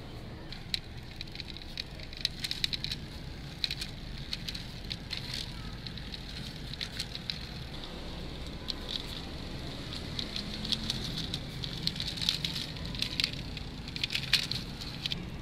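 Plastic wheels of a die-cast toy Jeep rolling and scraping over rough, gritty concrete as it is pushed by hand, giving an irregular crackle of small clicks from grit under the tyres.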